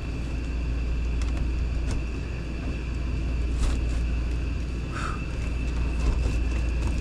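A steady low hum of shop background noise with a faint high whine, and a few faint knocks and creaks as a window glass is worked loose from its rusted channel in a classic car body.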